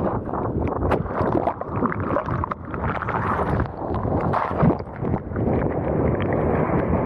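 Strong wind buffeting an action camera's microphone, a loud uneven rumble, mixed with water rushing and splashing under a kiteboard.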